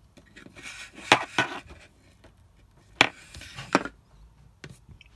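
Handling noise as the Starlink power cord's plastic plug is worked through a hole in a plastic wall cover plate: rustling of the cord, then four sharp knocks, two about a second in and two more around three seconds in.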